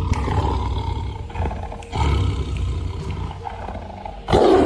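Bengal tiger roaring: long, low, rumbling roars, then a shorter, louder one near the end.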